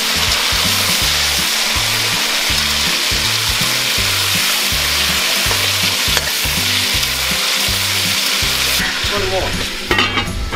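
Pieces of mutton frying in hot oil in an aluminium pot, sizzling steadily as a metal skimmer turns them, with one knock of the skimmer about six seconds in. The sizzle drops away near the end.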